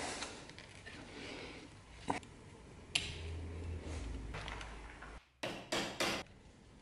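A few light clicks of leather and metal parts being handled on a wooden board, then three quick hammer taps on a leather knife sheath near the end.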